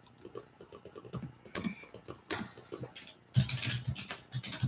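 Typing on a computer keyboard: irregular key clicks.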